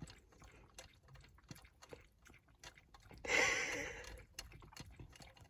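Dog lapping water with its face pushed into the mouth of a water bottle: a run of soft, wet clicking laps. A louder breathy burst comes about three seconds in.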